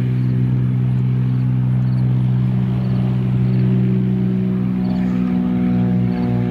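Cessna 182's piston engine and propeller at full takeoff power through the takeoff roll and liftoff: a loud, steady drone that grows fuller about five seconds in as the plane climbs away close by.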